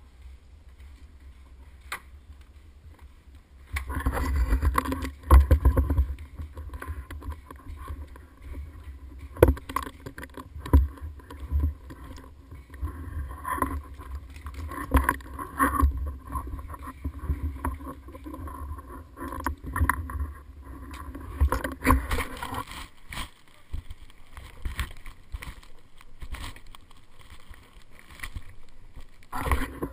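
Low rumble of wind and handling noise on a camera mounted on a paintball marker, with scattered sharp knocks. It starts about four seconds in and thins out for a while near the end.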